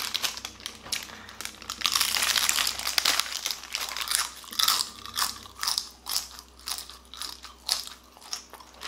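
Crunching of an air-fried rice-paper corn-cheese pizza being bitten and chewed close to the microphone: crisp crackles thick over the first few seconds, then spaced-out crunches as the chewing goes on.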